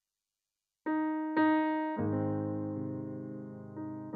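Red Nord Stage keyboard playing a piano sound: after almost a second of silence, two single notes of the same pitch, then a held chord that slowly fades and shifts to a new chord near the end.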